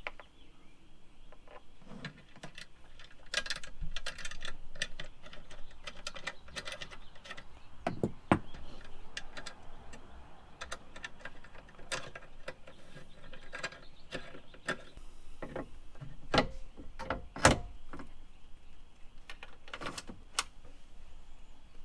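Hand tools on a metal mounting bracket: an Allen key and a wrench tightening screws and nuts, with scattered metal clicks and clinks. A few sharper knocks stand out, one about a third of the way in and two close together later on.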